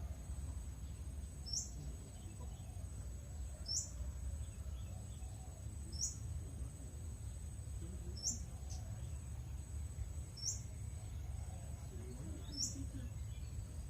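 A bird repeating one short, high, downward-sweeping call about every two seconds, six times. Behind it runs a steady high-pitched insect drone and a low wind rumble.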